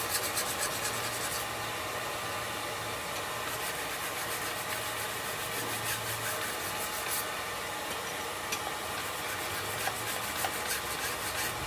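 Quick back-and-forth rubbing strokes on a freshly hardened steel knife blade, in several runs with short pauses between them, as the quench scale is worked off before tempering.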